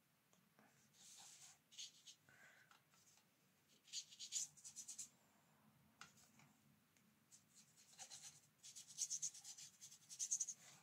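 Faint scratchy rubbing in short spells: a watercolour brush stroking the paper and the sheet being slid and turned on the table.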